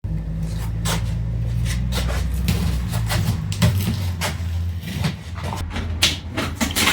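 Rubber floor covering being pulled up off a school bus floor: a run of irregular knocks, clicks and scrapes over a steady low hum.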